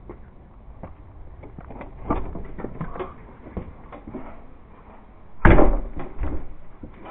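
Bumps and knocks of someone coming in through a door, then a door shutting with a loud thud about five and a half seconds in, followed by a lighter knock.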